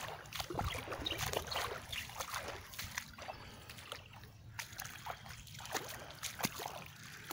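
Shallow floodwater running across sodden ground, with irregular sloshing and splashing as someone wades through it.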